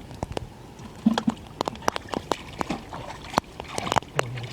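Water splashing and sloshing in a shallow pond, with many irregular sharp taps and clicks, as a man works through it by hand.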